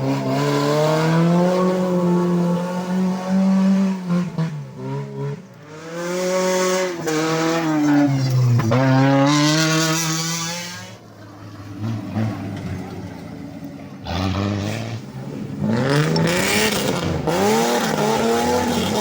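Competition rally car's engine revving hard, its pitch climbing and dropping again and again through gear changes and lifts. Several short rushes of tyre noise come with it as the car slides on the track.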